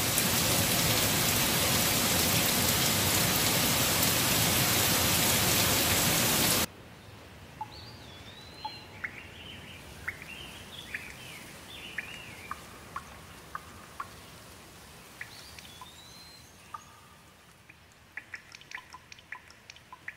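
Heavy rain, a loud even hiss, cuts off abruptly about seven seconds in. After that, birds call with short whistled and gliding notes over a faint background. Near the end, water drips tick sharply several times.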